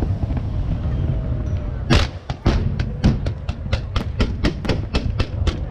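Fireworks display firing: a low continuous rumble of bursts, then from about two seconds in a rapid string of sharp bangs, several a second.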